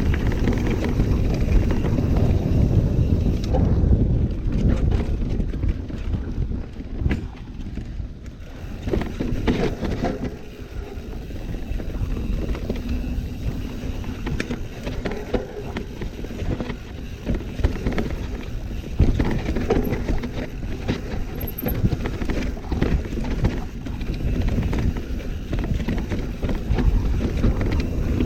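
Mountain bike descending a steep, rough downhill trail: wind buffeting the microphone over tyres rolling on dirt, with the bike rattling and knocking over bumps throughout.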